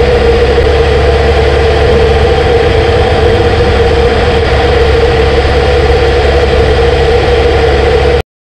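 Kawasaki GPZ900R's inline-four engine running at a steady cruise, heard from the rider's seat, holding one constant note. It cuts off abruptly near the end.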